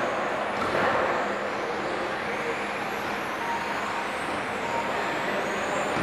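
Several 1:10 scale 4WD radio-controlled touring cars racing on a carpet track: a steady mechanical noise, with high motor whines gliding up and down as the cars speed up, brake and pass.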